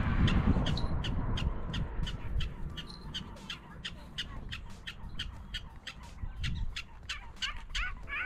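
Black-tailed prairie dogs giving alarm barks: a fast run of short, sharp chirping calls, about four a second, going on throughout and louder near the end. A low rumble sits under the calls at the start.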